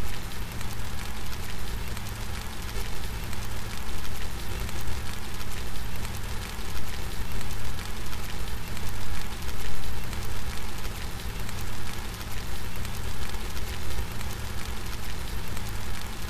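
Steady rain falling with no thunder, an even hiss over a low rumble.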